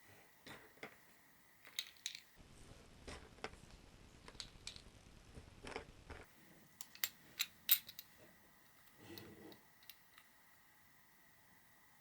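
A paintball pistol magazine and its parts being handled on a tabletop: scattered small clicks and light knocks, with a few sharper ticks past the middle. A faint steady high tone runs underneath.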